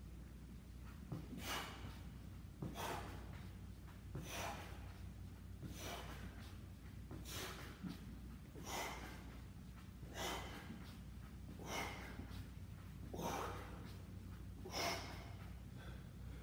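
A man's sharp, forceful exhales, one about every second and a half, in time with his kettlebell swings.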